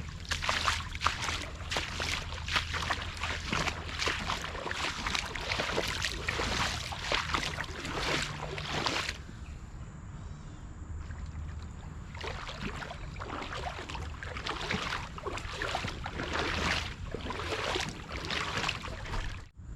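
Water sloshing and splashing in a shallow river, in rapid irregular splashes. It eases for a few seconds about halfway through, then picks up again.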